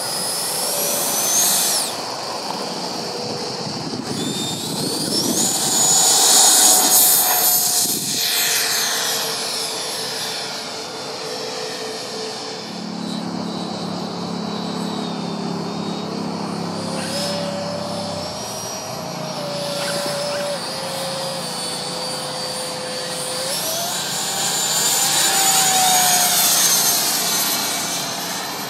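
Electric ducted fan of a Freewing JAS-39 Gripen RC jet model (9-blade 80 mm fan on an inrunner motor), a high-pitched jet-like whine. The whine rises as the throttle comes up and slides up and down in pitch as the model makes its passes, loudest about a quarter of the way in and again near the end.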